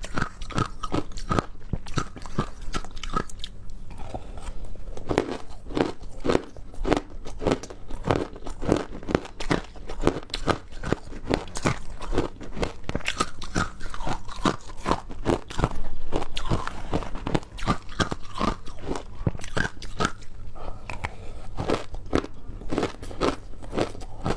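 Ice being bitten and chewed, a rapid, irregular run of sharp crunches and cracks.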